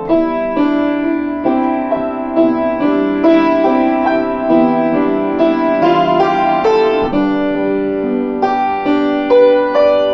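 Piano music: notes struck about every half second and left to ring over each other.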